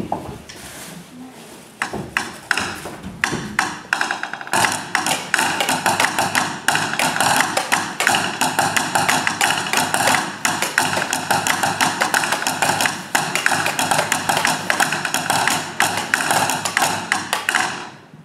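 Sticks tapping on a wooden stage floor as a rhythmic percussion piece: scattered taps at first, then a dense, fast clatter of many taps together from about four and a half seconds in, stopping shortly before the end.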